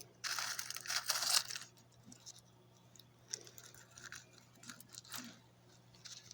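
Crunchy rustling and crinkling from handling the springtail container and loose bedding, in a few dense bursts during the first second and a half, then scattered light clicks and rustles.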